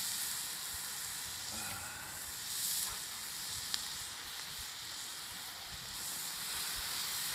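Carnitas pork and onions sizzling on a steel griddle over hot charcoal: a steady frying hiss, with one small click about four seconds in.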